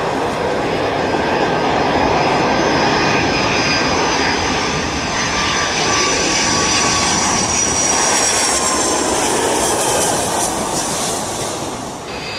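Jet airliner engines passing low overhead on landing approach: a loud, steady roar with a high whine that slowly falls in pitch, easing off near the end.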